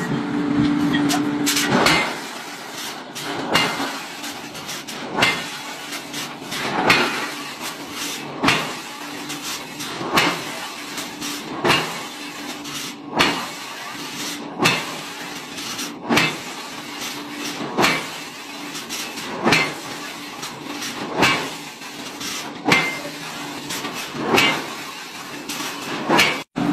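Heavy forging machine striking a red-hot steel ingot, one loud blow about every one and a half seconds, over a steady machine hum.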